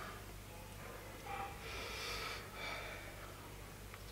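A man's faint, hissing breaths through the mouth, three short puffs in a row about a second in, as he suffers the burn of a ghost chili pepper (Bhut Jolokia).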